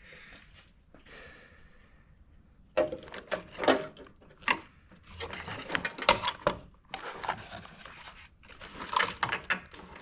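Irregular clattering, clicking and rattling of parts being handled during work on a car's front wiring, starting about three seconds in and going on in several clusters.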